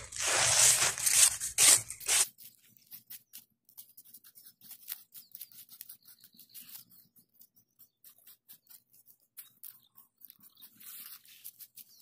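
Hands raking through coarse, shelly beach sand with a loud rustle for about two seconds, then a small metal scraper digging into the sand with scattered faint clicks and crunches of grains and shell bits.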